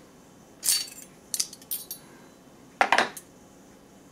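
Metal knife, fork and spoon of a Bundeswehr cutlery set clinking as they are handled and laid down on the tray. A clink comes about two-thirds of a second in, then a few small clicks, then a sharper double clink near three seconds.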